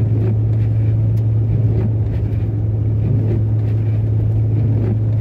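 Steady drone of a 1981 Ford Mustang's 200 inline-six at cruise, heard from inside the cabin, with an even hiss of tyre and road noise from the snow-covered road.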